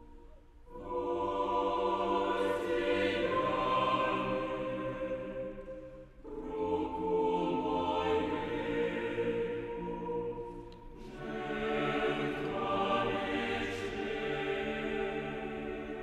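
Background music of sustained choir-like voices, moving in three long swelling phrases.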